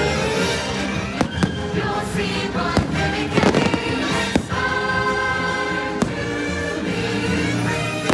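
Fireworks shells bursting in a string of sharp bangs over the show's music playing from loudspeakers.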